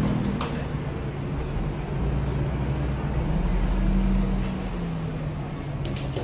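Low rumble of a road vehicle's engine in street traffic, swelling about two to four seconds in, with a couple of faint clicks near the end.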